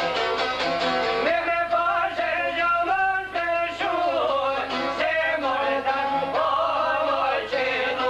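Albanian folk music: strummed long-necked lutes (çifteli) play a quick rhythm, and about a second in a man's voice comes in singing over them with a wavering, ornamented line.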